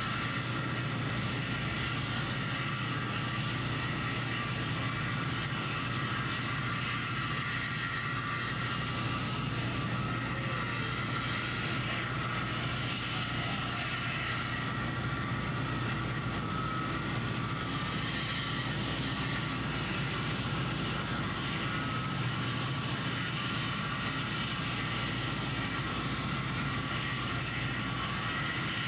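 Steady drone of distant engine-driven site machinery, a low hum with a faint higher whine above it and no distinct knocks or bangs.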